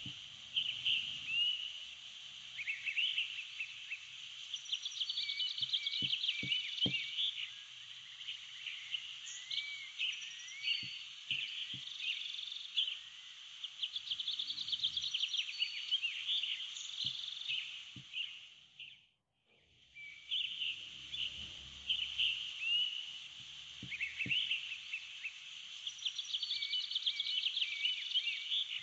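Nature-sounds ambience track: a dense chorus of chirping, trilling calls from frogs and birds over a steady outdoor hiss. It fades out briefly about two-thirds of the way through and then starts again.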